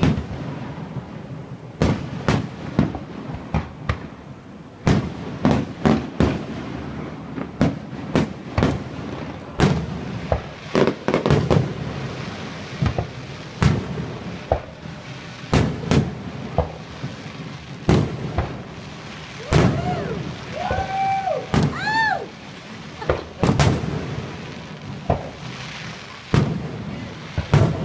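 Aerial fireworks display: a long, irregular series of loud shell bursts, some in quick clusters, with a few whistling shells gliding in pitch about twenty seconds in.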